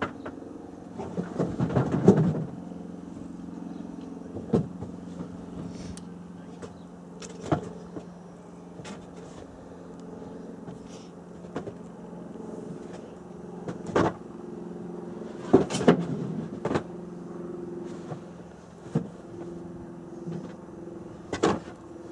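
A steady mechanical hum made of several fixed tones runs throughout, like an engine running. Scattered sharp clicks and knocks sit over it, with louder crackling stretches about two seconds in and again around sixteen seconds.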